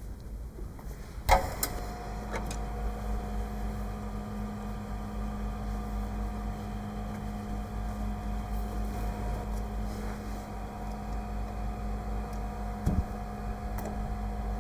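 A machine switches on with a click about a second in, then runs with a steady hum.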